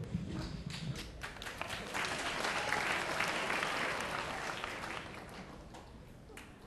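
Audience applauding: many hands clapping, swelling about two seconds in and fading away toward the end.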